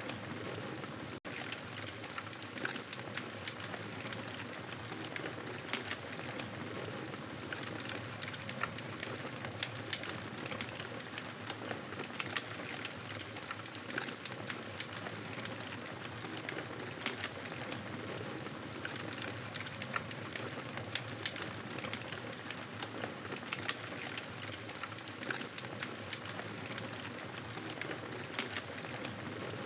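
Campfire crackling: a steady hiss dense with small irregular pops and snaps of burning wood. The sound drops out for an instant about a second in.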